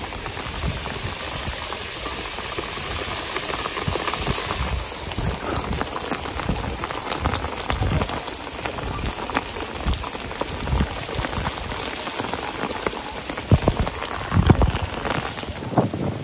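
Heavy downpour on a concrete seawall and the sea surface, a steady hiss full of close raindrop ticks, with drops striking near the phone's microphone. A couple of louder low thumps come near the end.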